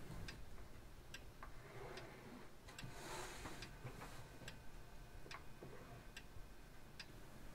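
Light, sharp ticks, roughly one every half second to second, like a clock ticking in a quiet workroom, with a brief soft rustle about three seconds in.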